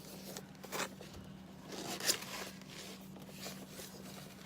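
Cardboard box and packaging being handled and opened by hand: a few short rasping scrapes, the loudest about two seconds in, over light rustling.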